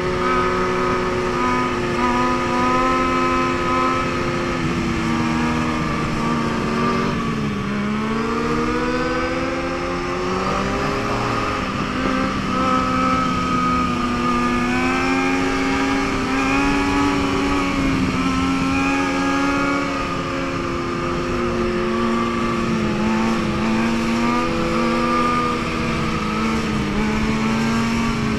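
Several motorcycle engines running together, their pitch rising and falling as the riders rev and ease off.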